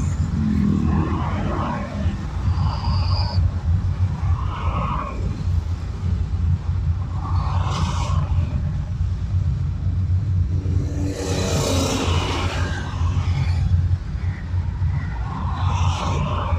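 Road noise heard from a moving car: a steady low rumble of driving in traffic, with a passing vehicle rushing by at about eleven to thirteen seconds in.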